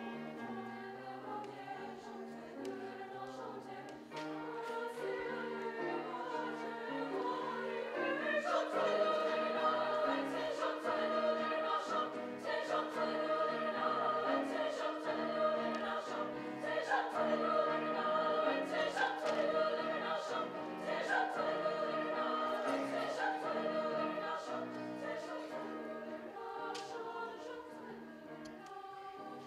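Women's chamber choir singing in several parts, swelling louder about eight seconds in and fading near the end.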